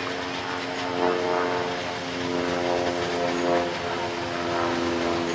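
Narrow-gauge passenger coaches rolling past on the rails, a continuous running noise with a steady droning tone through it.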